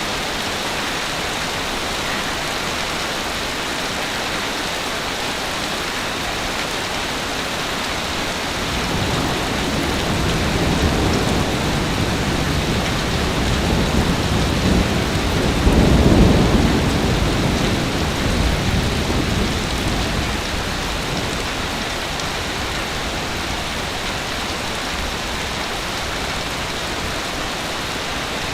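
Ocean waves on a beach: a steady wash of surf, with one bigger wave building about a third of the way in, crashing loudest around the middle with a deep rumble, then washing back out.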